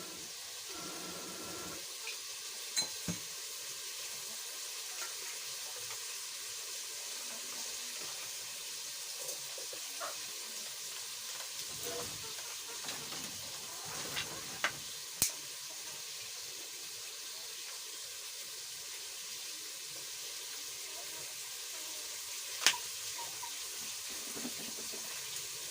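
Chopped tomatoes and onions frying in oil in a pot, a steady sizzle, with a few sharp clicks scattered through it, the loudest one near the end.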